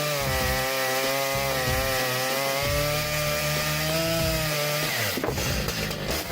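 Stihl MS881 two-stroke chainsaw running at high revs while cutting through thick wood, its pitch wavering slightly under load. The saw's sound drops away about five seconds in.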